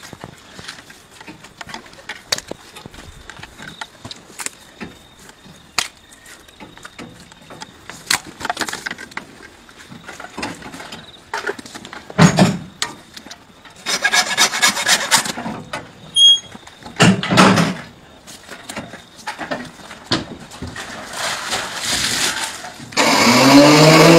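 Butchering sounds from a hanging beef carcass: scattered knocks and scraping, with bursts of rapid sawing about two-thirds of the way through. Near the end a motor starts up loudly, rising in pitch.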